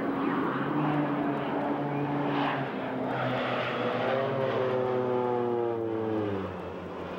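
Two propeller aerobatic planes making a low formation pass: a steady engine drone whose pitch slides down as they go by, about four seconds in, then drops in level near the end.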